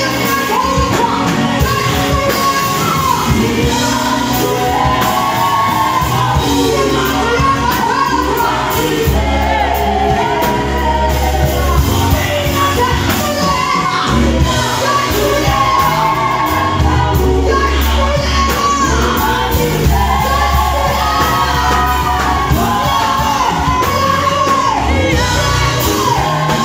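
A vocal group singing live in a hall, with instrumental backing and deep held bass notes under the voices.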